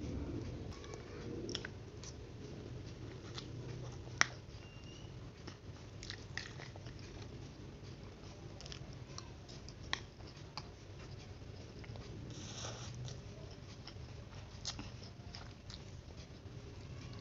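A person chewing and biting a mouthful of fried instant noodles (mie goreng), with scattered sharp clicks of a spoon and fork on the plate, two of them louder.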